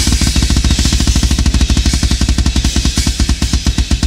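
Death metal drum kit played live in a solo: a fast, even stream of bass drum strokes under a steady wash of cymbals.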